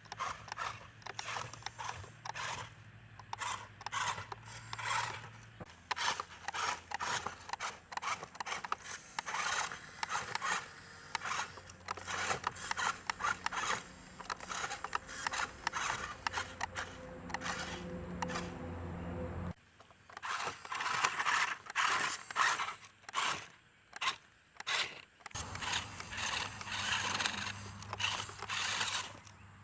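Small RC mini 4WD truck driving. Its electric motor and gears give a low hum that shifts in pitch, under irregular bursts of gritty noise from the wheels on the ground. The hum drops out for several seconds after the middle, leaving only the gritty noise, then comes back.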